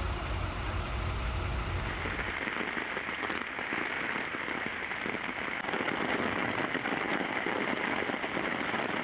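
Steady heavy rain hissing and pattering onto flooded, hail-strewn pavement, with many small drop clicks. For the first two seconds a low vehicle engine rumble sits under it, then drops away.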